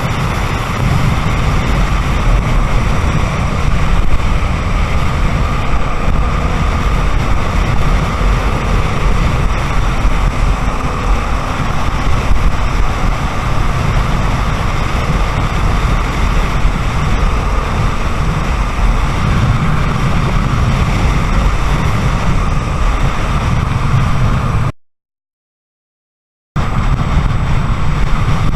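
Honda XR250 Tornado's single-cylinder engine running under way, mixed with steady wind rush on the microphone, a loud, even noise heavy in the low end. The sound cuts out completely for about two seconds near the end.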